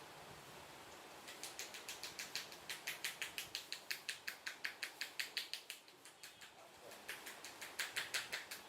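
Rapid rhythmic hand tapping on the head during an Indian head massage, about five sharp claps a second. It comes in two runs: a longer one starting about a second in, and a shorter one near the end.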